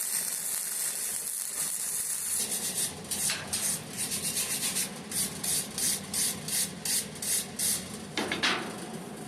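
Metal being smoothed by hand with abrasive rubbing: a steady scraping hiss at first, then back-and-forth strokes at about two and a half a second, and one longer stroke near the end.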